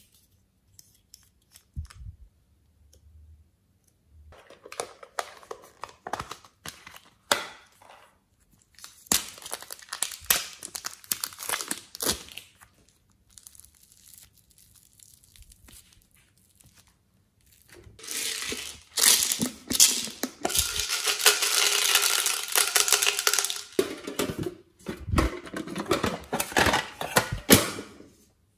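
A few faint clicks from a small bottle being handled, then soft modelling clay stretched, pulled apart and squeezed by hand: rustling, tearing sounds in uneven bursts, loudest for about ten seconds near the end.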